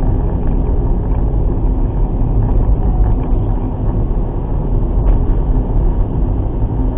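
Steady in-car road noise from a moving car, a deep engine and tyre rumble picked up by a dashcam's built-in microphone.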